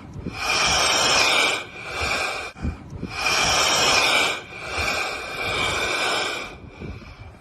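Heavy "breathing" noise from waves pushing and pulling air in and out of rock cavities, like a blowhole. It comes as four long hissing whooshes of one to two seconds each, in two inhale-exhale pairs, and fades near the end.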